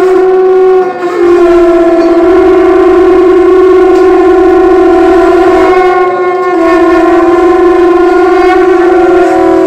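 Several conch shells blown together in one long, loud blast, their steady horn-like tones overlapping at slightly different pitches, with small shifts in pitch about a second in and near six seconds.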